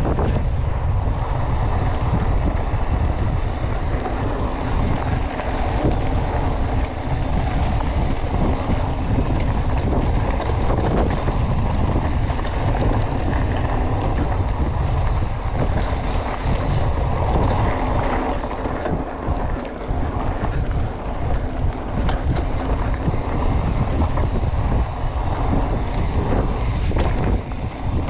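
Wind buffeting the camera microphone while riding a Commencal hardtail mountain bike fast down a dirt trail, with a constant low rumble and the rattle and jolts of the bike over the rough ground.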